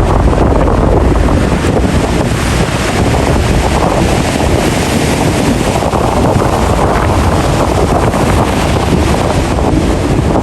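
Ocean waves making a continuous loud rush, with wind buffeting the microphone.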